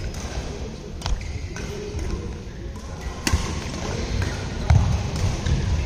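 Badminton racket strikes on a shuttlecock during a rally: two sharp cracks about two seconds apart, over dull low thumps, in a large hall.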